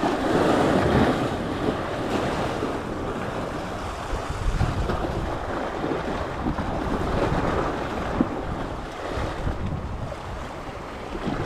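Sea surf washing in, with wind rumbling on the microphone; the wash is loudest in the first second or so.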